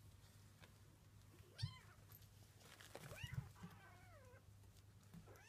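British shorthair kittens mewing faintly: a short high mew about a second and a half in, then a longer mew that falls in pitch, with a couple of soft bumps from their play.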